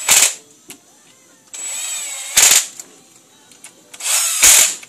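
Cordless drill driving bolts into a Harley-Davidson V-twin's cam cover, running in three short bursts about two seconds apart, each ending louder.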